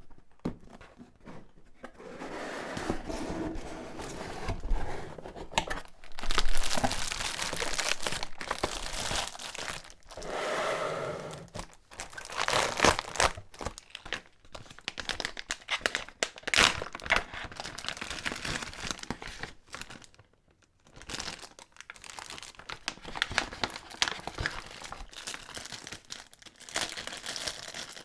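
Packaging being unwrapped by hand: crinkling and tearing of wrapping in irregular bursts, with a brief pause about two-thirds of the way through.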